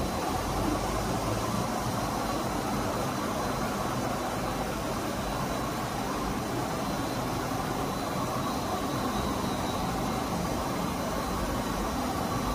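Steady, even noise of industrial plant machinery running, with a faint high whine held throughout.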